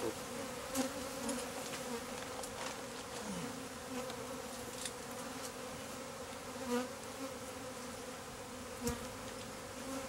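A large colony of Africanized ("killer") honey bees buzzing in a steady, dense drone as the hive is disturbed, with a few brief knocks.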